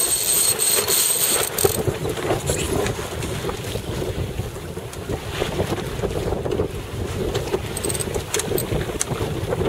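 Wind buffeting the microphone on a heeled sailing yacht under way, over the wash of water along the hull, with scattered small clicks and knocks.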